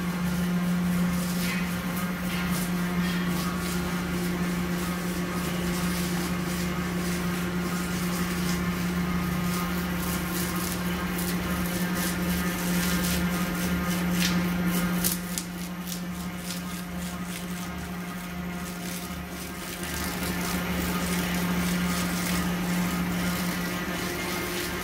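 Insect glue trap rewinding machine running: a steady motor hum with scattered clicks and rattles, dipping quieter for a few seconds past the middle.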